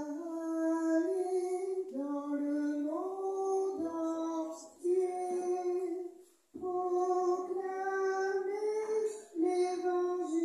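A woman's solo voice singing a slow chant-like melody without accompaniment: held notes moving up and down in small steps, with short pauses for breath about every three seconds. It is the sung responsorial psalm that follows the first reading at Mass.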